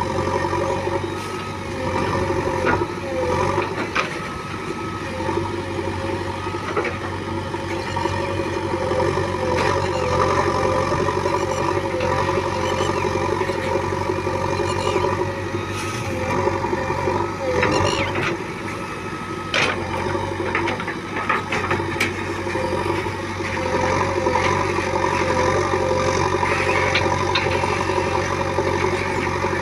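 Diesel engines of a backhoe loader and tractors running steadily at a working site. A few sharp knocks stand out near the middle and later on, and one tone wavers up and down.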